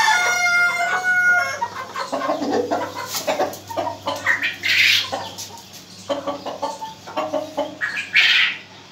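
Aseel chickens vocalising: a rooster's crow tails off about a second and a half in, followed by a run of clucks with two louder calls, one near the middle and one near the end.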